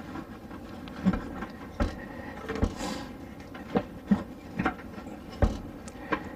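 A series of irregular knocks and clunks, about six in all, from handling and pinning the dinette table's telescoping stand to set its height.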